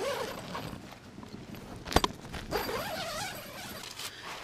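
Tent nylon rustling and creaking as someone crawls into the tent, with one sharp knock about two seconds in.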